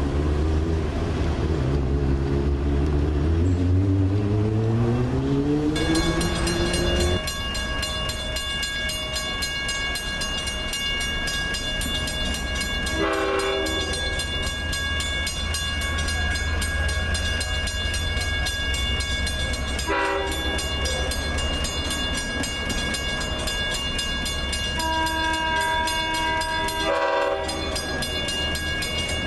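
A departing Long Island Rail Road EMD diesel locomotive accelerating, its engine note rising steadily in pitch. Then an approaching LIRR diesel train sounds its horn three times over a steady high ringing: about 13 seconds in, briefly about 20 seconds in, and longer near the end.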